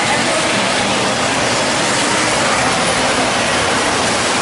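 Steady, even background din of a model railroad exhibit hall, with no single sound standing out.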